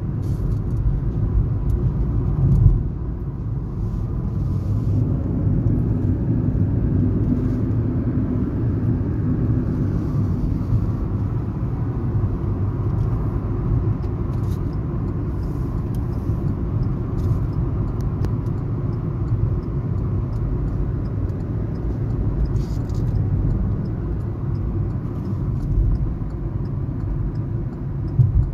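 Car driving, heard from inside the cabin: a steady low rumble of road and engine noise, with one brief knock about two and a half seconds in.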